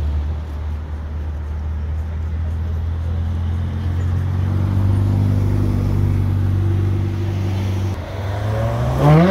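Ferrari supercars, a 488 Pista and a 599 GTO, rolling past at low speed with a deep, steady engine drone. Near the end one engine revs up sharply in a short rising blip, the loudest moment.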